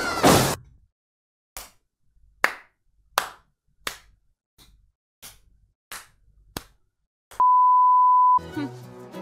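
A person clapping by hand, about nine sharp claps at a slightly uneven pace of roughly one every 0.7 s. Near the end a steady electronic beep lasts about a second, and music starts just after it.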